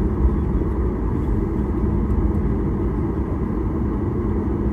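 Cabin noise inside a jet airliner taxiing: a steady low rumble from the engines at low thrust and the rolling gear, with a faint steady hum.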